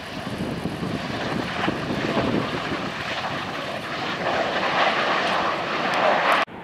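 Panavia Tornado's twin RB199 jet engines on the takeoff roll: loud, steady jet noise that grows louder, then cuts off suddenly near the end.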